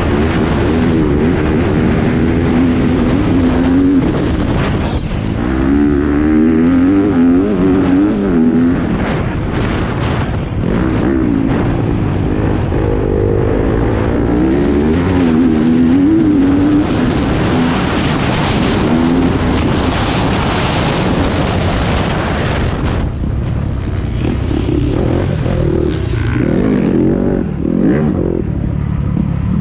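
Yamaha YZ250F dirt bike's 250 cc four-stroke single-cylinder engine under riding load, its revs rising and falling repeatedly through throttle changes and gear shifts. Heard close up from a helmet-mounted camera, with wind noise over it.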